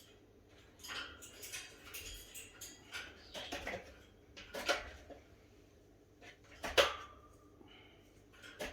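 Scattered clinks and taps, like dishes being handled, with the loudest knock about seven seconds in.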